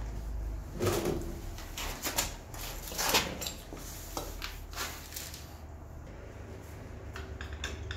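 Several clicks and knocks in the first few seconds as the drain plug is worked out, the loudest about one and three seconds in, then old engine oil draining from the Suzuki TL1000S's sump into a plastic drain tray, with a few faint clicks near the end.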